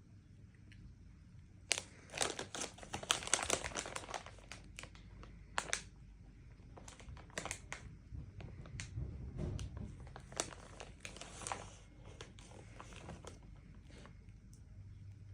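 Plastic packaging crinkling and tearing in irregular handfuls, the longest about two seconds in, with shorter bursts after it.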